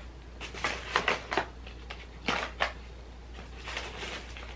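Small makeup product packages being handled: a handful of light knocks and clatters as boxes are picked up and set down, then a short rustle.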